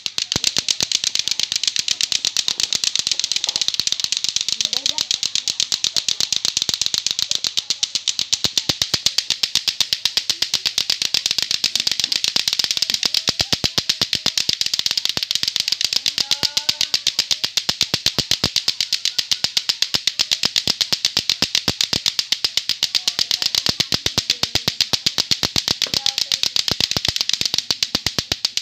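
Latto-latto clacker toy: two hard balls on a string knocked together over and over in a fast, even clacking rhythm of several clacks a second, kept up without a break.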